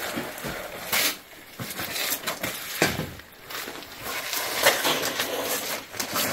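Irregular scuffs and scrapes of hikers clambering over sandstone: shoes stepping and sliding on rock and grit, with gear rustling, the loudest scrapes about a second in and again near three seconds.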